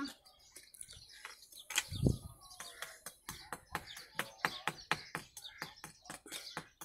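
A small metal blade scraping and tapping at stuck-on cement on glazed ceramic tiles, a quick run of short sharp scrapes and clicks, several a second, with a dull thump about two seconds in.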